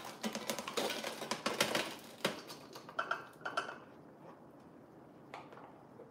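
Hard, crunchy cooked snack pieces clattering out of a countertop cooker's basket onto a sheet pan: a dense rattle for the first two seconds or so, then a few scattered clicks and taps as the last pieces are shaken loose.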